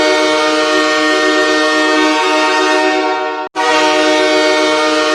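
Los Angeles Kings' ice hockey goal horn blowing a loud, steady multi-note chord. It cuts off about three and a half seconds in and sounds again after a short gap.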